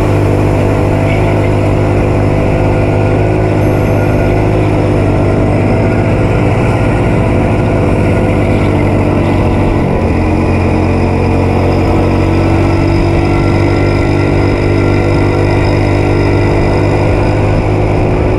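Go-kart engine running at speed, heard from the driver's seat, a steady drone whose pitch shifts about ten seconds in.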